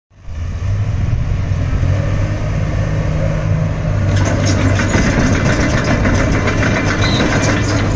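Komatsu PC360LC-10 excavator's six-cylinder diesel engine running steadily with a low hum. About four seconds in, a dense metallic clatter of the steel track chains joins it as the machine travels.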